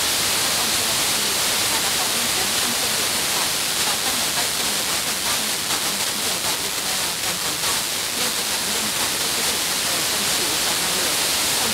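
Heavy FM receiver hiss over a weak, distant broadcast received by F2-layer skip, with a woman's talk faintly audible beneath the noise. The signal wavers and fades a little in the middle.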